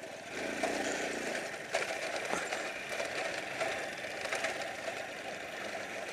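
Honda C90 step-through's small single-cylinder four-stroke engine running as the bike is ridden along a bumpy dirt track, with scattered rattles and knocks from the bike over the rough ground.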